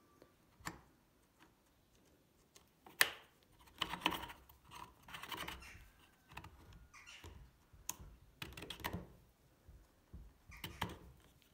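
Steel saw chain on a chainsaw guide bar clicking and rattling as it is tugged by hand and the tensioning knob is turned: checking and setting the chain tension. Irregular light clicks and short rattles, with one sharp click about three seconds in.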